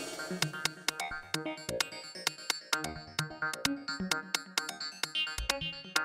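Electronic background music with synthesizer notes over a steady drum-machine beat.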